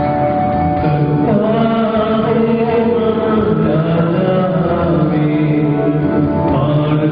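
A sung liturgical chant during Mass, over held instrumental notes; the singing voice comes in about a second in.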